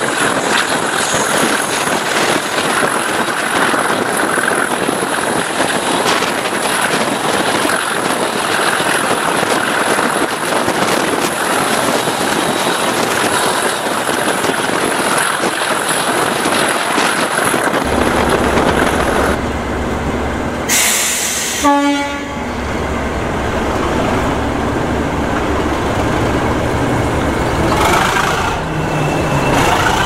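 English Electric Class 37 diesel locomotive working a passenger train, its V12 engine running under power mixed with wheel and rail noise, heard from an open coach window. A little past halfway the engine's low steady note comes through more strongly, and a brief, louder burst stands out about two-thirds of the way through.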